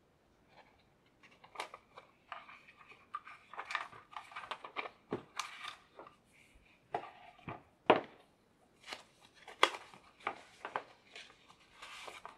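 Hands handling a box and its contents: irregular clicks, taps and short rustles starting about a second in, with one sharper click near the end.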